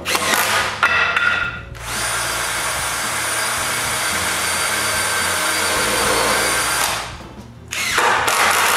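Cordless drill driving screws into wood, running in bursts: a couple of short runs, then one long steady run of about five seconds with a whining motor tone, and another short run near the end.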